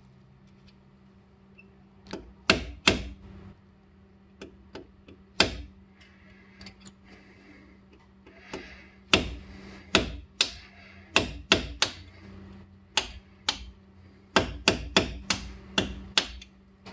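Mallet blows on the flat end of a drill bit used as a punch, tapping out a brake pad retaining pin from a six-piston Brembo front caliper. About twenty sharp strikes come in irregular clusters, with a quick run of them near the end.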